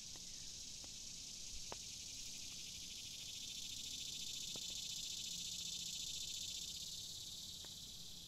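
Evening insect chorus: a dense, high, rapidly pulsing buzz that swells to a peak midway and fades away near the end. A few faint pops from the wood campfire.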